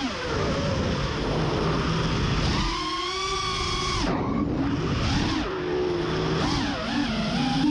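FPV quadcopter's brushless motors and propellers whining, the pitch rising and falling repeatedly as the throttle changes, over a rush of prop and wind noise.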